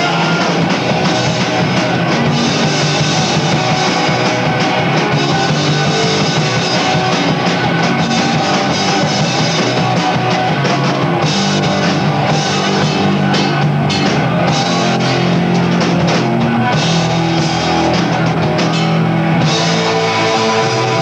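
Live rock band playing loud and steady, with electric guitars and a drum kit.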